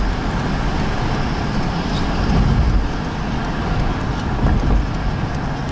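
Steady rumble of road and engine noise from a car driving at speed, heard inside its cabin.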